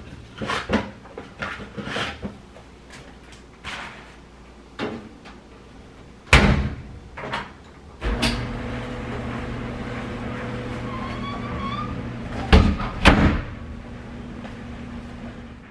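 Stacked washer-dryer being loaded and shut, with scattered knocks and a loud bang about six seconds in. From about eight seconds the washing machine runs with a steady hum; two loud knocks of closet doors shutting come near the end, after which the hum goes on more muffled.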